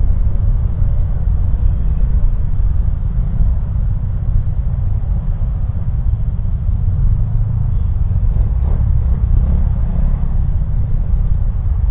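Steady low rumble of a motorcycle ride in slow, congested city traffic: the bike's running engine and the surrounding vehicles blend into one dense, unpitched drone.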